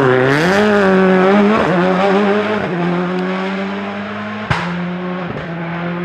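Citroën Xsara WRC's turbocharged four-cylinder engine revving hard through a hairpin, its pitch swinging up and down. It then pulls away through gear changes into a steady, slowly fading note, with a single sharp crack about four and a half seconds in.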